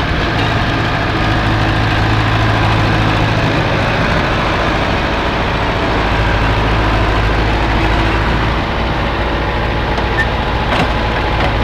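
Heavy machine's engine idling steadily, a constant low hum that holds the same pitch throughout.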